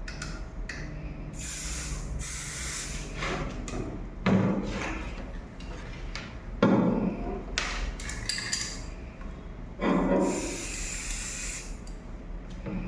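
Aerosol can of magnetic particle medium sprayed in hissing bursts onto a weld, two longer sprays about a second and a half in and about ten seconds in, with shorter spurts and a few knocks of the can and handling in between.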